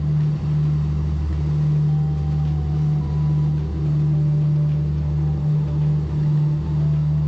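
Engines of an Egg Harbor sportfishing boat running steadily underway: a steady, deep drone.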